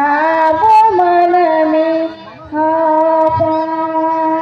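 A solo voice singing a Santali song in long held notes: the first starts with a quick upward slide and steps in pitch for about two seconds, then after a short break a second long, steady note begins about two and a half seconds in.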